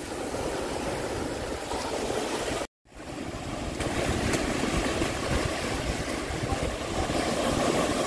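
Ocean surf washing up the beach with wind rumbling on the microphone, a steady rush of noise. The sound drops out for a moment about three seconds in, then the surf and wind carry on a little louder.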